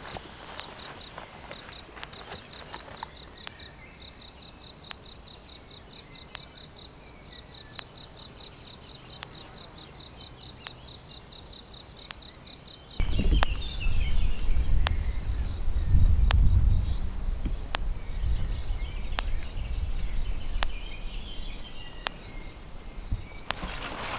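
Crickets singing, a steady high trill that cuts off shortly before the end. About halfway through, a low rumble joins it.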